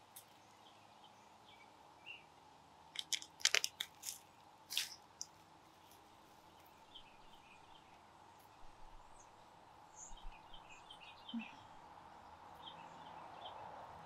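Hands digging through compacted garden soil and pulling out potatoes: a quick cluster of crunches and rustles a few seconds in, then softer scattered scrapes and ticks.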